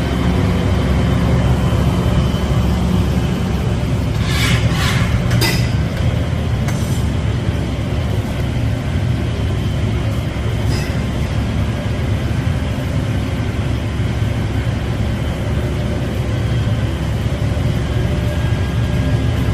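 Steady low roar of a glassblowing studio's gas-fired furnace and burners, with a few brief crackles a few seconds in.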